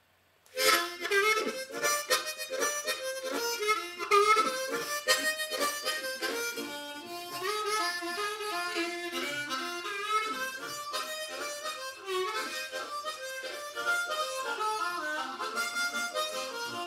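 Harmonica playing a lively tune of quick, changing notes and chords, starting about half a second in.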